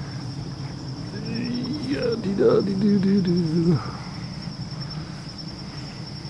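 Insects chirping in a steady, fast-pulsing high-pitched trill. Partway through, a man's voice makes a drawn-out wordless sound for about two seconds, then stops.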